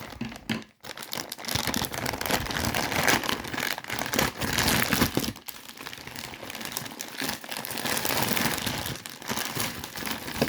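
Bag of 50p coins crinkling and rustling as it is handled and opened, a continuous run of small crackles.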